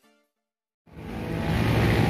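The last notes of electronic keyboard intro music die away, followed by a short silence. About a second in, road traffic fades in and rises to a steady level: the running engines of passing motorbikes and cars.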